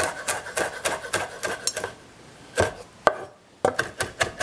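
Chef's knife rough-chopping fresh thyme on a wooden cutting board: even blade knocks about three or four a second, a short pause around the middle, then quicker chopping again.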